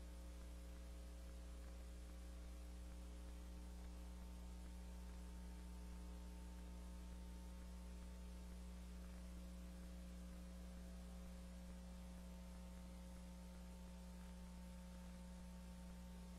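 Steady low electrical hum with a faint hiss, unchanging throughout; no other sound.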